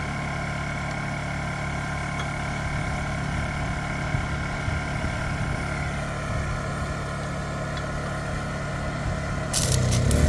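Portable generator engine running steadily, its pitch dipping slightly about halfway through. Near the end a louder, irregular crackling starts over it.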